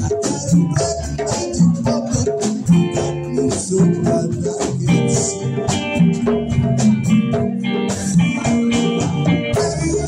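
Live rock band playing loud and steady: electric guitar over congas and a drum kit, with steady high ticking percussion.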